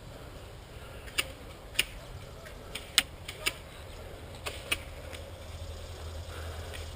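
Scattered single shots from airsoft guns: about seven sharp, irregularly spaced cracks over a steady low background. The loudest comes about three seconds in, and the shots stop after about five seconds.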